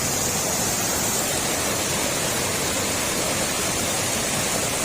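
Rushing river water running steadily, an even hiss with no breaks.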